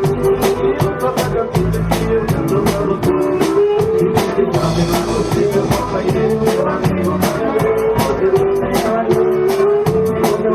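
Xote dance music from a band: a melody line over drum kit and bass, in a steady beat.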